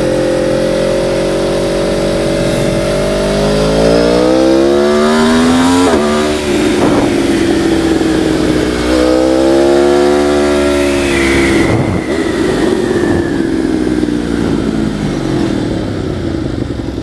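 Motorcycle engine heard from the rider's helmet camera, revving up, then dropping sharply about six seconds in. It rises again and then eases off.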